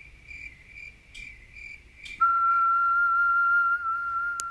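A cricket chirping faintly and regularly. About two seconds in, a loud steady test-card tone cuts in: the single-pitch beep of an 'off-air' colour-bar screen. It holds with a slight waver and stops with a click.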